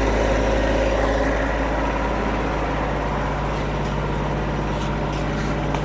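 Wood-Mizer LX55 band sawmill running steadily under load as its band blade cuts a slab through hard hickory. The mill is straining and the blade wanders, leaving waves in the cut.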